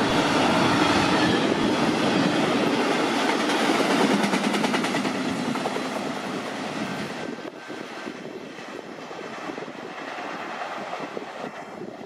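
Autorack freight cars rolling past at speed on steel rails. The noise is loud at first, then falls away from about five seconds in as the end of the train pulls away.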